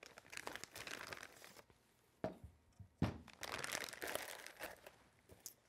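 Clear plastic packaging bag crinkling as it is pulled off a small audio interface. About three seconds in there is a sharp knock as the unit is set down on the table, then more crinkling as the bag is crumpled and pushed into the box.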